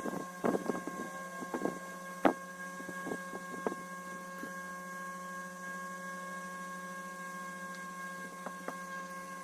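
A steady electrical hum, with a few short clicks and knocks in the first few seconds, the loudest about two seconds in, and two faint clicks near the end.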